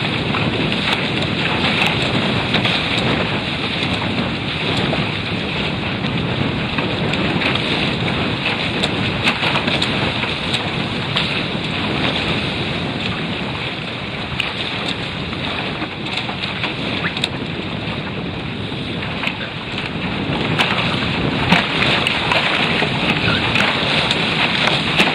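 Water rushing and splashing along the hull of a Prindle 16 catamaran sailing at speed, with wind buffeting the microphone. It grows louder again near the end as heavy spray bursts over the bow.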